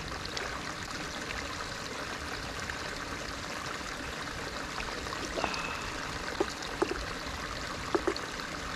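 Water running and trickling steadily at a hot spring, with a few small splashes or drips in the second half.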